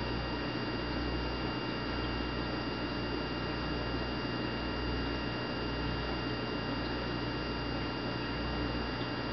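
Steady electrical hum with a constant hiss and a few faint steady high tones.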